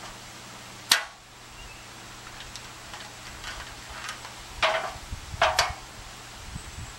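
A sharp knock about a second in, then a few faint taps and two louder knocks about a second apart near the middle, with a low rumble under the later part: tools and framing material being handled during construction work.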